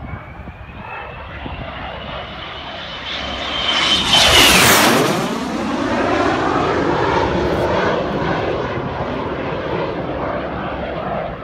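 Fouga CM-170 Magister jet making a low, fast flypast. Its high turbine whine grows as it approaches and is loudest about four to five seconds in, where the pitch drops sharply as it passes. The roar of its twin Turbomeca Marboré turbojets then slowly fades as it flies away.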